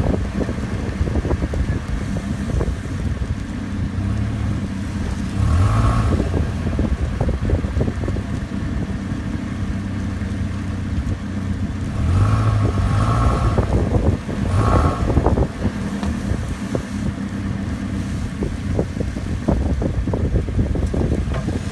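Motor vehicle running with a steady low hum, over which come frequent irregular clunks and knocks. A few short higher-pitched tones come and go.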